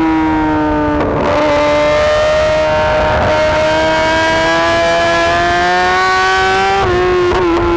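Yamaha YZF-R6's 600 cc inline-four engine pulling under steady acceleration, its pitch rising slowly, with a short dip in pitch near the end.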